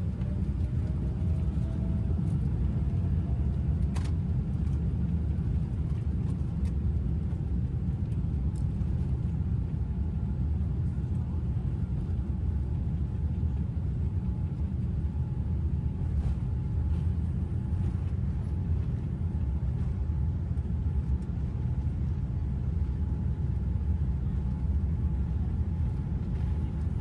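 Steady low rumble of a Boeing 787 airliner moving on the ground before takeoff, with a faint steady whine above it.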